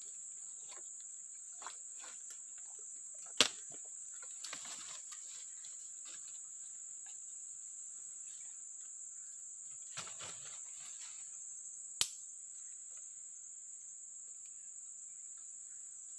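Steady high-pitched drone of insects, with soft rustling of leaves and twigs as someone handles them. Two sharp clicks stand out, a few seconds in and again about three-quarters of the way through.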